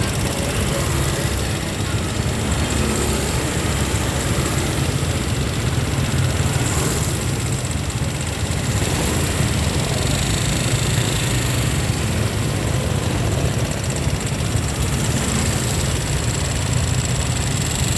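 Steady vehicle and street noise dominated by a constant low rumble, with no distinct events standing out.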